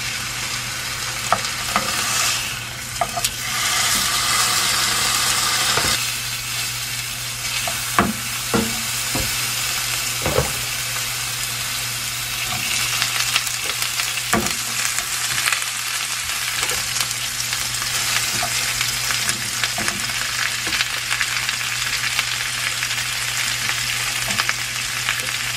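Beef steaks frying in butter in a nonstick pan, sizzling steadily, with a few sharp clicks and knocks as food is turned and added to the pan, over a steady low hum.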